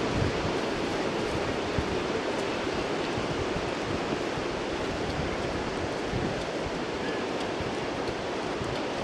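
Steady rushing wind noise across the camcorder microphone, with irregular low buffeting rumbles underneath.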